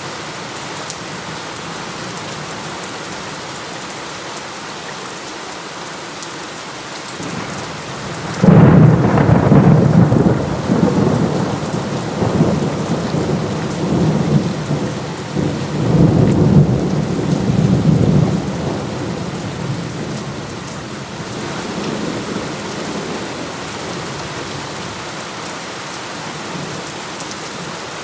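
Steady heavy rain, with a sudden clap of thunder about eight seconds in that rolls on in several swells for some twelve seconds before fading back under the rain.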